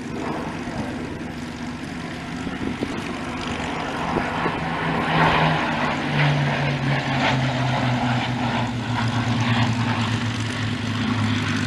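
Piston-engined propeller aircraft flying past. Its engine note grows louder and drops steadily in pitch from about four seconds in.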